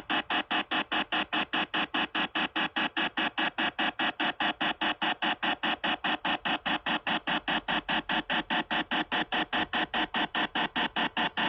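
Electronic dial-up telephone-line sound: a steady, even run of rapid buzzy pulses, about five a second.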